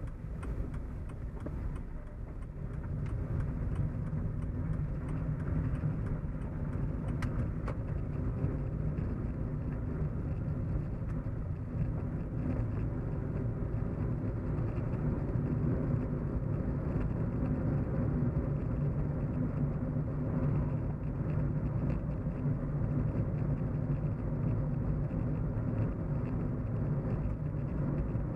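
Steady low road and engine hum of a car in motion, with a few faint ticks near the start.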